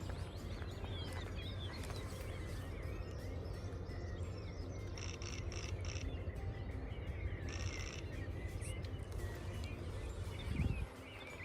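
Songbirds chirping and singing in short, quick phrases over a steady low rumble, with a brief low thump near the end.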